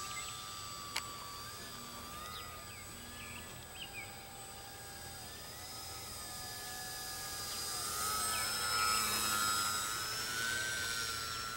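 Small electric RC plane's 1300 kV brushless motor and propeller whining in flight, the pitch wandering with throttle and rising and growing louder about eight seconds in. A single sharp click about a second in.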